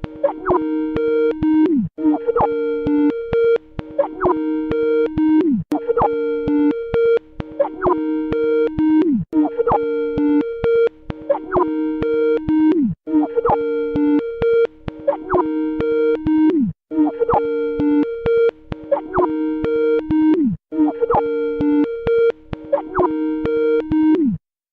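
The Skype ringtone played backwards: a short electronic melody of bright pitched notes that loops about every four seconds, each loop ending in a quick falling glide. It cuts off shortly before the end.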